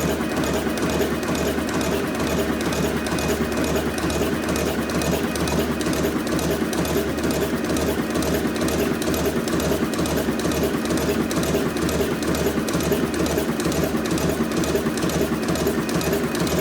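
An industrial machine running steadily with a fast, even, repeating mechanical clatter over a constant low hum.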